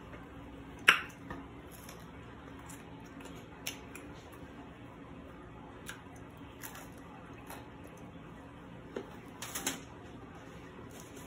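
Eating a crispy shrimp flatbread: a sharp crack about a second in as it is bitten, then faint scattered mouth clicks of chewing over a steady low hum. Near the end there is a short cluster of knocks as a drinking tumbler is picked up.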